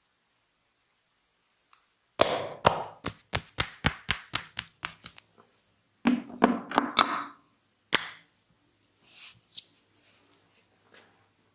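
Massage hands striking the body in a fast run of sharp percussive slaps, about four a second for some three seconds. A second, shorter flurry follows, then one last lone sharp strike.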